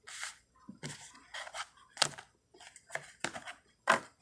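Oracle and tarot cards being moved by hand on a table: a run of irregular short swishes and taps as cards are slid, picked up and set down, with two sharper snaps about two seconds in and near the end.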